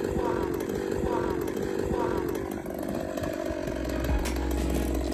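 Ported Stihl chainsaw idling steadily. Music with a deep, steady bass comes in near the end.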